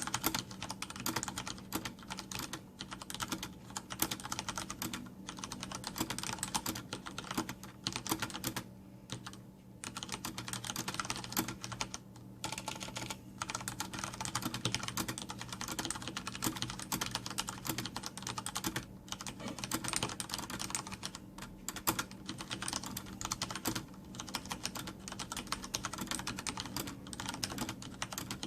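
Continuous fast typing on a Logitech G710+ mechanical keyboard with Cherry MX Brown switches and no O-ring dampers, a dense run of key clacks with a couple of brief pauses.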